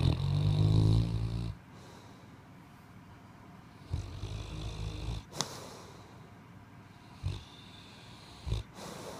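A middle-aged man snoring: a long, loud, low snore at the start and another about four seconds later, then two short snores near the end. A sharp click comes just after the second snore.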